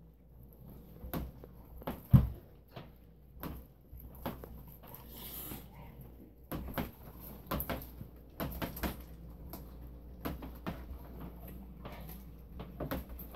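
Carolina Dog gnawing a partially frozen raw goat leg: irregular crunches and knocks of teeth on meat and bone, the loudest a heavy thump about two seconds in.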